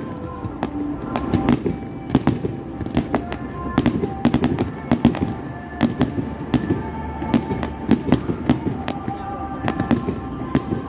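Fireworks going off in quick, irregular succession: sharp bangs and pops, several a second, from ground-fired cakes shooting red stars.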